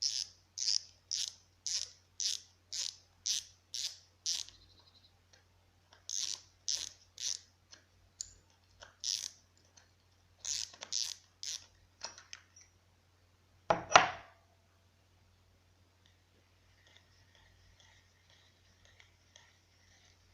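BioMaster filter making a run of short, high-pitched hissing clicks, about two a second, in stop-start runs over a steady low hum; this is the noise the unit is recorded for. One louder knock comes about fourteen seconds in, after which only the faint hum remains.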